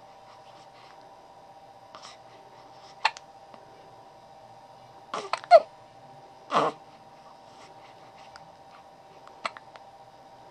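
Newborn baby hiccuping: several short, sudden hiccups at uneven gaps of one to three seconds. The loudest comes about halfway through with a brief high squeak.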